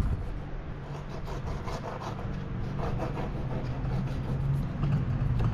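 A knife cutting along a banjo shark's backbone while filleting, with faint, irregular scraping strokes of the blade through tough skin and flesh, over a steady low hum.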